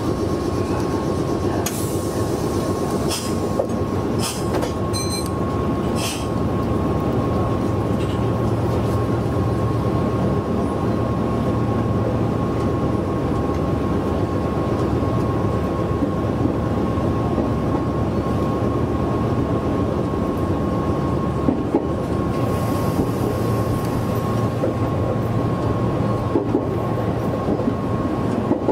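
Meitetsu 6800-series electric train running along the line, heard from the front of the train: a steady rumble of running noise with a steady high tone over it. A few sharp clicks of wheels over rail joints come in the first few seconds.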